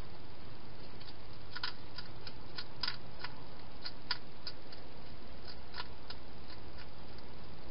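Hedgehog chewing food: a run of small crisp clicks at an uneven pace, starting about a second and a half in and thinning out towards the end, over a steady low hiss.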